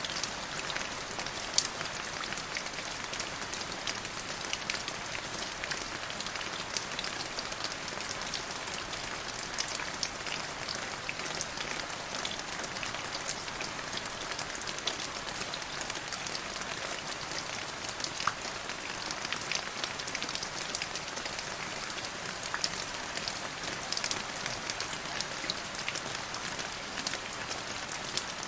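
Steady rain falling, with many separate drop impacts ticking sharply over an even hiss.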